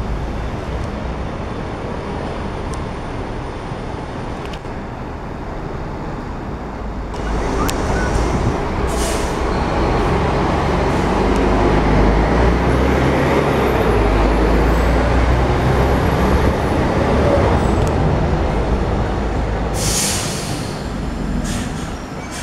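Volvo B12M bi-articulated bus's diesel engine running and then pulling away, growing louder about seven seconds in as it accelerates and easing off near the end. Two short bursts of compressed-air hiss from the bus's air system break in, about nine seconds in and near the end.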